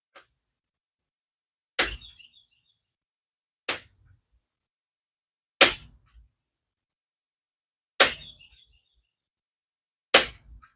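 Air rifle shots: five sharp cracks about two seconds apart, each followed by a brief rattling tail, with a faint click just before the first.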